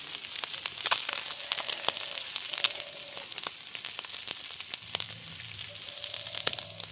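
Mahurali fish frying in plenty of hot oil: a steady sizzle with frequent sharp crackling pops.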